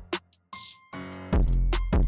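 Background music: an electronic hip-hop-style beat with a deep bass, sharp hi-hat and snare hits, and a melody over it.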